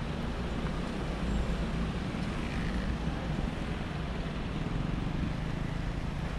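Steady city road traffic: a continuous low rumble of car and motorbike engines running along the street.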